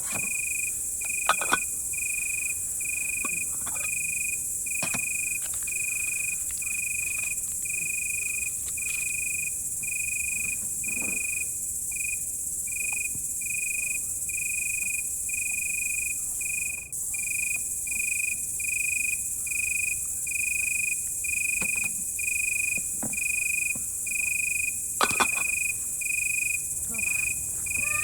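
Crickets chirping steadily, evenly spaced chirps a little under two a second, over a continuous high-pitched insect trill. A few short knocks come through now and then.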